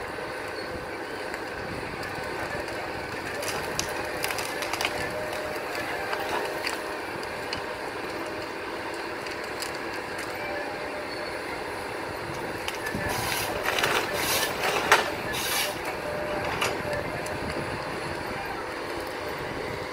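Forestry harvester running steadily, its engine and hydraulics giving a constant machine noise with faint steady whines. Between about 13 and 16 seconds in, a cluster of sharp cracks and knocks comes from the harvester head working the tree.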